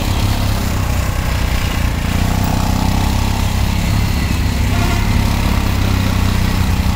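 Street traffic, with a vehicle engine idling steadily close by.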